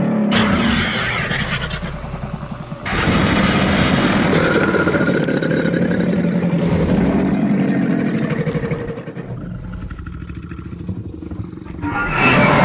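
Monster roar sound effects, rough and engine-like: one roar breaks off about three seconds in, a longer one runs for several seconds and sinks to a quieter rumble, and a loud one starts again near the end.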